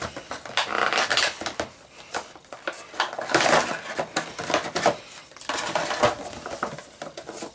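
Clear plastic toy packaging crinkling and clattering in hand as an action figure is unboxed, in irregular bursts, the loudest about a second in and again around three seconds in.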